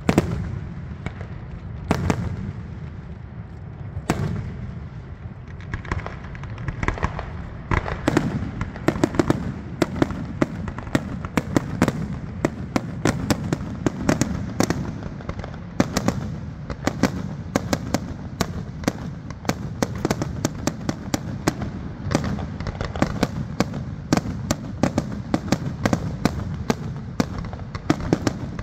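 Fireworks display: a few separate booms at first, then from about eight seconds in a rapid, near-continuous barrage of bangs and cracks.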